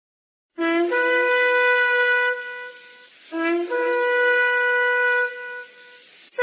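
Shofar sounded in two long blasts, each opening with a short low note that steps up to a held higher note.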